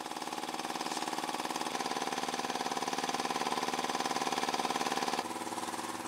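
A small engine running steadily, its tone shifting and getting a little louder about two seconds in, then dropping back shortly before the end.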